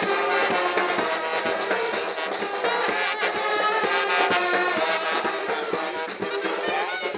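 Brass band playing, trombones and trumpets over regular drum hits.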